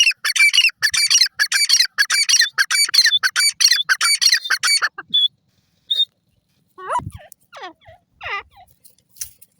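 Grey francolin (teetar) calling: a loud, fast run of repeated shrill notes for about five seconds, then a couple of short whistles and some softer, lower, gliding calls in the second half, with a dull thump about seven seconds in.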